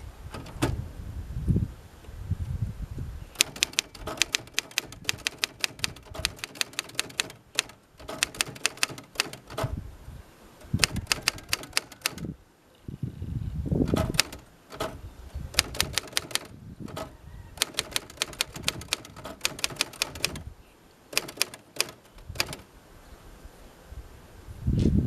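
1963 Royal Empress manual typewriter being typed on: quick runs of sharp key strikes in bursts with short pauses between them, and a few deeper thuds in between.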